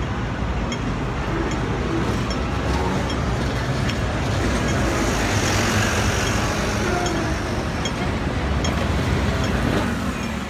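City street traffic: a steady rumble of vehicles, with a double-decker bus passing close, its engine and tyre noise swelling to a peak about halfway through. Faint high ticks repeat at a regular pace throughout.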